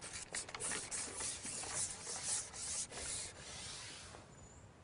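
Carbon fishing pole being shipped out, sliding through the angler's hands in a run of rubbing strokes that die away a little after three seconds in.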